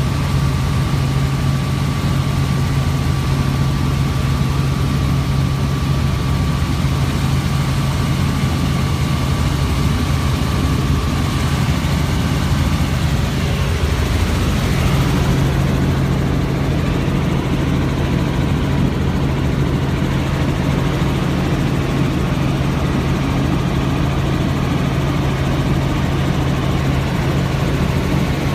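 Helicopter engine and rotor noise heard from inside the cabin: a loud, steady drone with a strong low hum, shifting briefly about halfway through.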